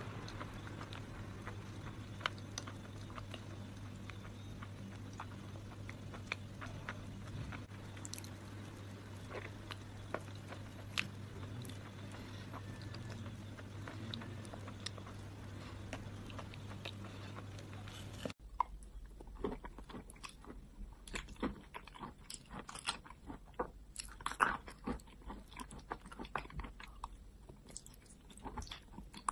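Close-up wet mouth sounds of eating thick clay paste: chewing, smacking lips and sticky clicks. A faint low hum and sparse clicks run through the first two-thirds. After an abrupt cut, the mouth clicks and smacks come cleaner and more often.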